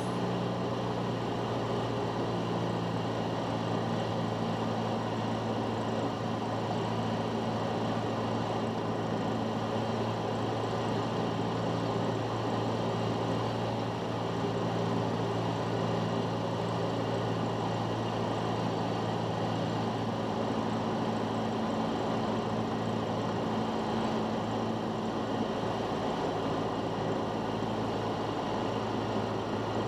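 Cessna 172's piston engine and propeller droning steadily in cruise flight, heard inside the cabin together with the rush of air around the airframe.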